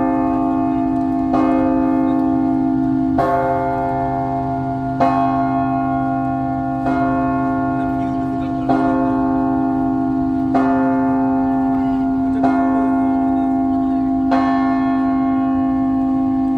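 The church bell of the Anglican cathedral in Seoul tolling at noon. The same bell is struck about once every two seconds, eight strokes in all, and each stroke rings on under the next over a deep, steady hum.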